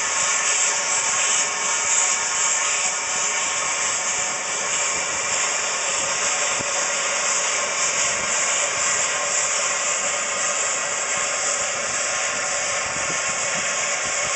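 Steady hiss of steam escaping from a small steam locomotive standing on the track, with faint steady ringing tones in the hiss.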